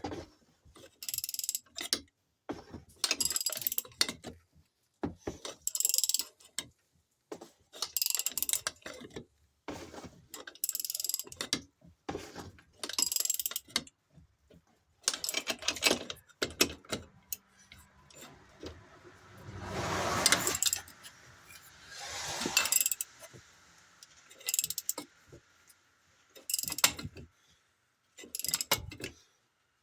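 A ratchet wrench clicking in repeated short strokes, about one every second or so, as a lug nut is tightened over washers to pull a new wheel stud into an ATV hub; two longer, heavier strokes come about two-thirds of the way through.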